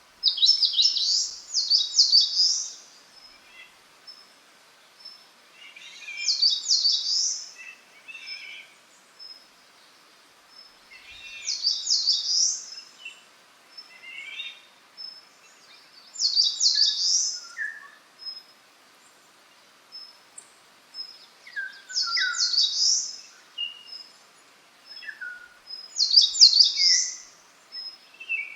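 Wild songbirds: one bird sings a short, high phrase of fast repeated notes about every five seconds. Softer calls from other birds and a faint run of thin high notes fill the gaps between phrases.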